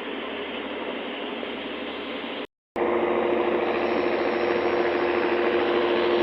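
Boat engine running steadily under a constant rush of noise. It cuts out for a moment about two and a half seconds in and returns louder, with a steady, even drone.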